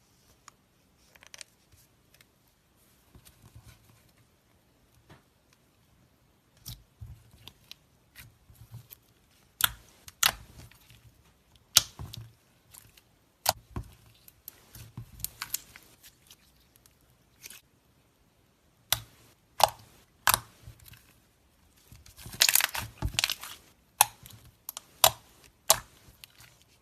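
Slime being handled close up: irregular sharp clicks and crackling pops, with a dense run of crackling about 22 seconds in.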